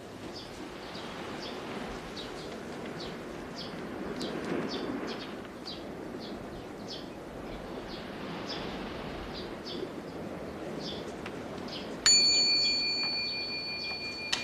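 Small birds chirping again and again, about twice a second, over a steady background hiss. About twelve seconds in, a small bell is struck once and rings on with a clear tone that fades slowly.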